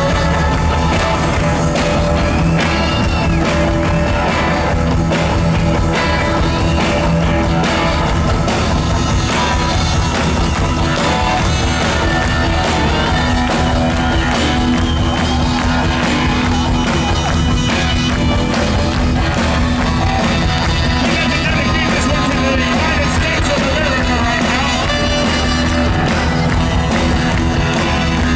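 Live rock-and-roll band playing loudly, with electric guitar, organ and accordion among the instruments, and a man singing into the microphone.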